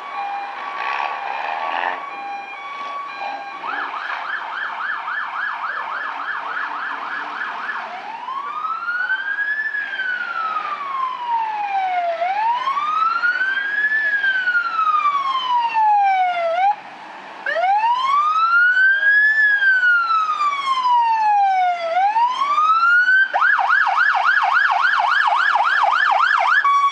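Emergency vehicle siren changing patterns. It opens with steady horn-like tones, then gives a fast yelp for a few seconds. A slow rising-and-falling wail follows for about fifteen seconds, and the fast yelp comes back near the end.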